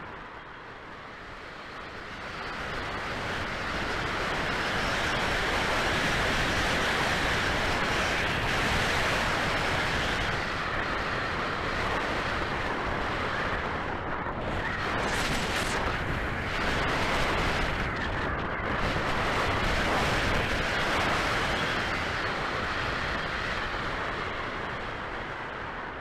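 Airflow rushing over the onboard camera of a 1/8 scale Nemere RC glider in flight, a steady whooshing wind noise. It swells a few seconds in, wavers in the middle and eases off near the end.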